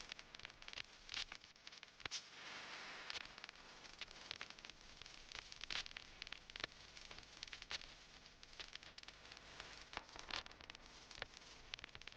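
Faint rustling with irregular sharp clicks and crackles, with a denser stretch of rustle about two seconds in.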